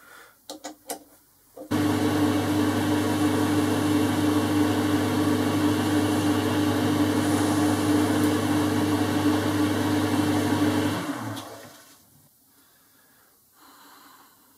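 A few clicks, then a Boxford metal lathe starts about two seconds in and runs steadily with a hum while facing the end of a chuck jaw screw to length; it stops and winds down about eleven seconds in.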